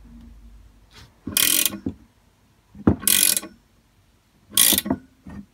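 Ratchet spanner clicking in three short bursts, about a second and a half in, three seconds in and near the end, as it is swung back between turns of the nut on a long bolt. The bolt, socket and washer are working as a puller, drawing a Lambretta silent block engine-mount bush out of the casing.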